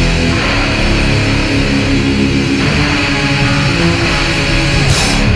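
Hardcore punk music with loud electric guitars, and a bright crash near the end.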